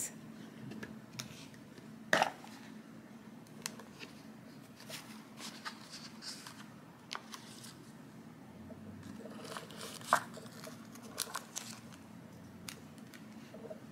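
Unboxing handling noise: a sunglasses case being opened and its paper inserts and plastic-wrapped packets handled, giving soft crinkling and scattered small clicks. A sharper click comes about two seconds in and another about ten seconds in.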